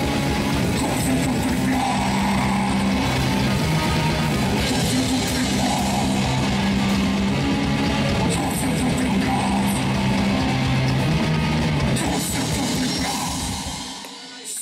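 Death metal band playing live: distorted electric guitar, bass guitar and drums in a dense, loud wall of sound. The band stops near the end.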